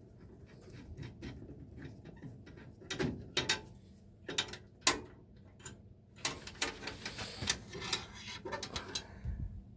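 Irregular small metal clicks, taps and scrapes as a gas furnace's flame sensor is unscrewed and pulled out of the burner assembly.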